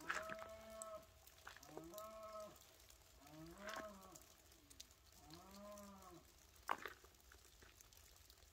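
Cattle mooing: four short calls, each under a second and rising then falling in pitch, about every one and a half seconds. A single sharp tap comes about two-thirds of the way through.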